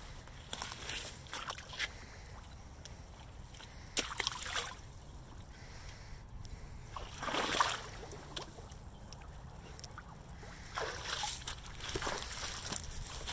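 Rubber Hunter wellington boots splashing and squelching through ankle-deep mud and standing water, one step after another, with the loudest splash about halfway through.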